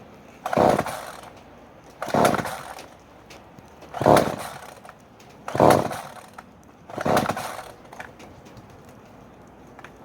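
Two-stroke chainsaw being pull-started cold on choke: five pulls of the recoil starter cord, about one every one and a half seconds. The engine does not catch.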